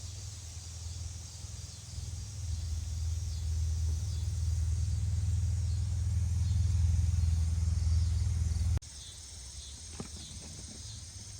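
A low rumble swells over several seconds and cuts off suddenly, with crickets chirping steadily in the background.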